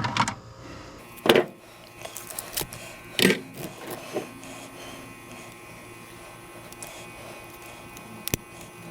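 Aluminum-armored MC cable and its wire being handled as scrap: a few sharp knocks and clatters, the loudest about a second in and again about three seconds in, over a faint steady hum.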